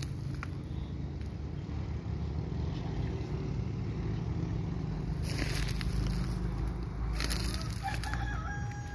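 Old wheel loader's engine running steadily with a low rumble. A rooster crows near the end.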